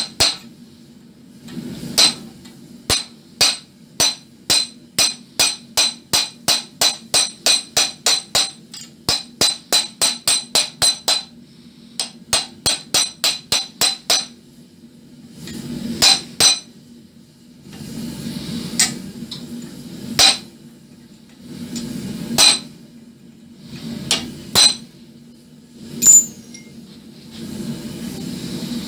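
Hammer striking a chisel and punch held against red-hot wrought iron in a vise, chasing detail into a forged ram's head. First comes a fast, even run of ringing metallic taps, about three a second for some twelve seconds. Then come slower single and double blows every two seconds or so, with a low rushing noise between them.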